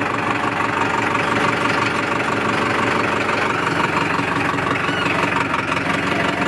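Powertrac tractor's diesel engine running steadily, with an even, rapid knocking pulse.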